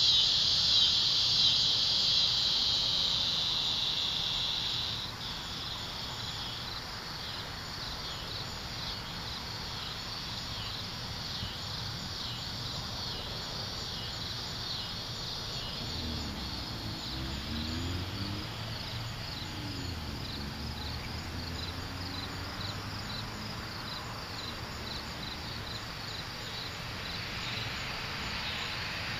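Insects chirping in the grass. A loud steady high trill stops suddenly about five seconds in, and after it a regular, evenly spaced chirping goes on.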